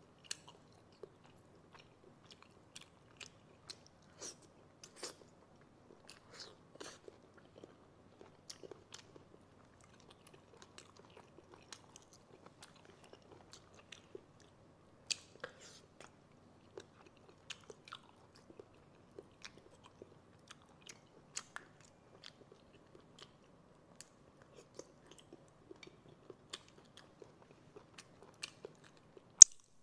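Close-miked eating of snails in sauce: scattered wet clicks and smacks of chewing and biting, with one much louder sharp click near the end.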